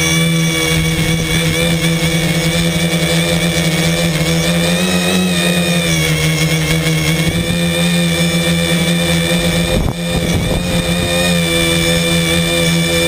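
Brushless motors and propellers of a V-tail tricopter, recorded from a camera mounted on the craft: a steady, loud multi-tone whine and buzz that drifts slightly in pitch as the throttle changes. About ten seconds in there is a brief dip and a rough, gusty disturbance.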